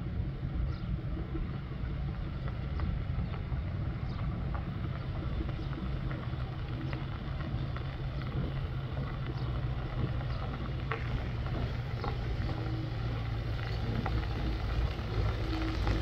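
Old Paykan sedan's four-cylinder petrol engine running at low speed as the car rolls over a gravel road, with small crackles from the tyres on the stones. It grows louder near the end as the car draws close.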